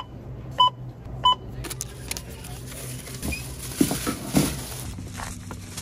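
Self-checkout scanner beeping: three short two-tone beeps about two-thirds of a second apart. Then a plastic shopping bag rustling, with small knocks as items go into it.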